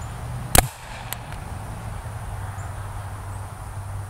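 Homemade PVC hairspray-fuelled combustion pistol, ignited by a piezo grill sparker, firing once: a single sharp bang about half a second in as it launches a paper rocket straight up. A much fainter click follows about half a second later.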